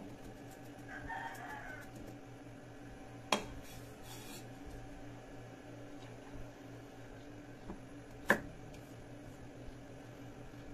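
Two sharp knocks on a thick wooden chopping block, about three and eight seconds in, with a short scrape of the cleaver between them. A rooster crows faintly about a second in, over a steady low hum.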